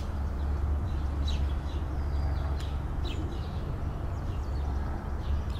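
Outdoor ambience: a steady low rumble with scattered short bird chirps over it.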